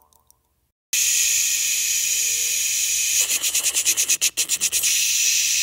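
Television-static sound effect: a loud, steady hiss that starts about a second in and stutters rapidly, about eight or nine pulses a second, for a second and a half in the middle before going steady again.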